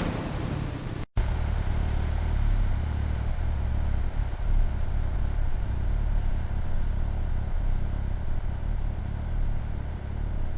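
A motor vehicle's engine running steadily with a low rumble, after a brief break about a second in.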